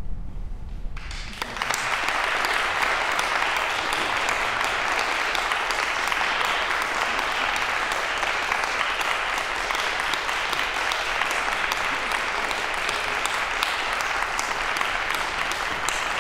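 Concert audience applauding: dense, steady clapping that breaks out about a second in and keeps up evenly, the ovation at the end of a performance.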